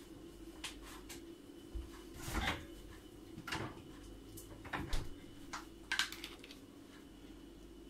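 Several scattered knocks and clinks of kitchen things being handled, the loudest about two and a half, five and six seconds in, over a faint steady hum.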